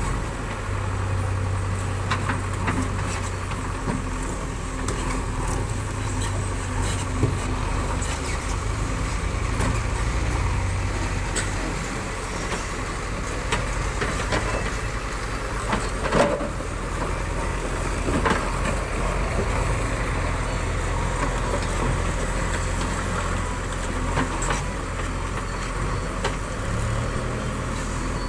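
JCB 3DX backhoe loader's diesel engine running steadily, its pitch shifting a little as the load changes, with occasional sharp knocks, the loudest about 16 seconds in.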